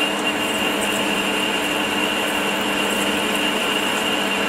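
Metal lathe turning at low speed while a carbide boring bar roughs out a bore: a steady machine hum with a constant high whine over the cutting noise.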